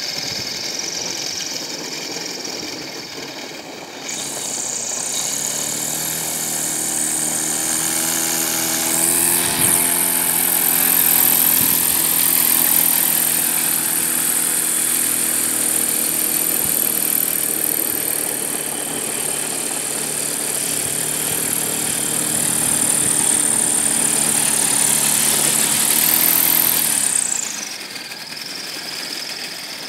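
Electric motor and propeller of a homemade propeller-driven sled running. It gives a high whine over a pitched hum, rising in pitch about four and nine seconds in as the motor speeds up, holding steady, then dropping sharply near the end as it slows.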